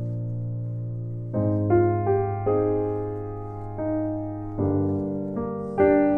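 Background music: slow, sustained keyboard notes and chords, a new one struck every half second to a second and left to ring and fade.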